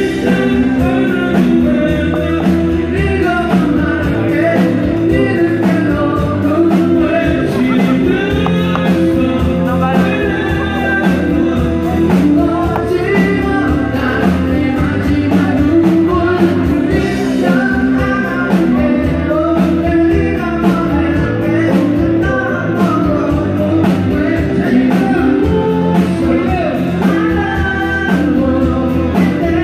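Live band playing a rock-style song: a singer over guitar, bass and drums, steady and loud.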